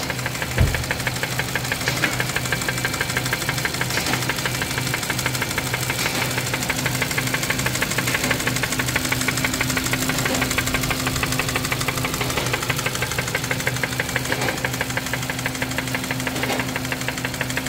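Hyundai Kona 1.6 T-GDI turbocharged direct-injection petrol engine idling with a loud, diesel-like clatter of rapid, even ticking. The owner finds the noise abnormal for a petrol engine. There is a brief thump about half a second in.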